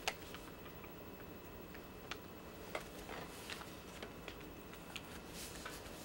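A sheet of origami paper being folded and creased by hand: faint paper rustles and scattered light ticks as the folds are pressed flat.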